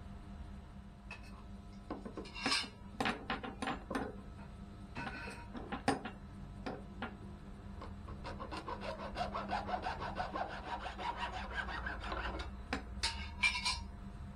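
Hand saw cutting in back-and-forth strokes. The strokes come in uneven spurts at first, then settle into a steady run about two-thirds of the way in, with a few last strokes near the end.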